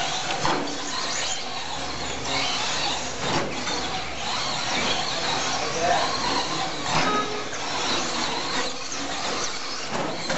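Several Traxxas Slash 2WD electric short-course RC trucks racing on a dirt track. Their motors and gears give a high-pitched whine that rises and falls with throttle, and a few knocks are heard.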